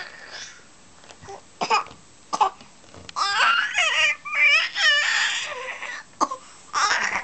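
A baby's high-pitched squeals and cry-like vocal noises in short bursts, with a run of wavering, pitch-sliding squeals from about three to five seconds in.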